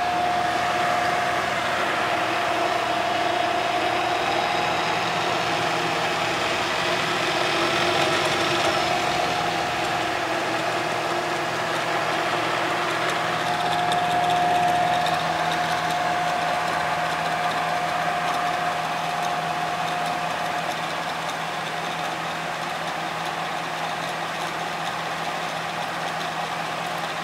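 Alzmetall pillar drill running free, not drilling: a steady motor hum with a high gear whine that fades about a third of the way in and returns for a while before fading again.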